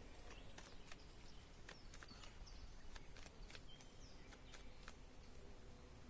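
Near silence: faint high bird chirps with a scatter of light clicks.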